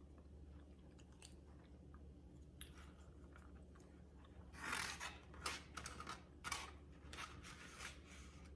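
Chewing a chicken salad wrap in a flour tortilla: faint at first, then a run of louder, crunchy chews from about halfway through.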